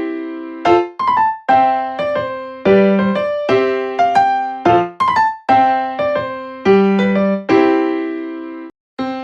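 Background music: a gentle electric piano playing a run of chords, each struck note decaying before the next, with a brief gap near the end.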